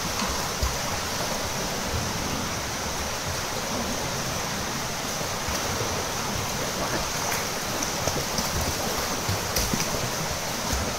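Steady splashing and churning water from many swimmers doing front crawl in adjacent pool lanes, with small irregular splashes from strokes and kicks.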